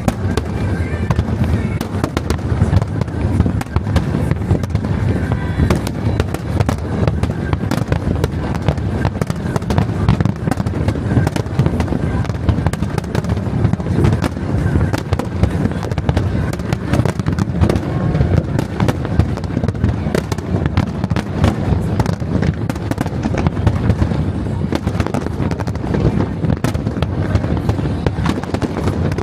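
Fireworks heard close to the launch site: a dense, unbroken run of bangs and crackles, many per second.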